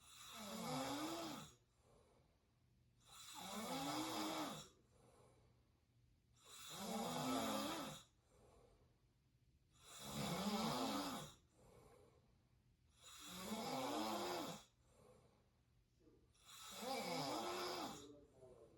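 A sleeping person snoring through an open mouth: six snores, one about every three seconds, each rising then falling in pitch, with a faint breath between them.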